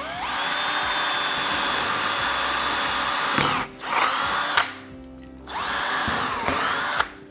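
Power drill driving screws to fasten wall mounting clips: a whine that spins up and runs steadily for about three seconds, stops, then two shorter runs, the last one winding down.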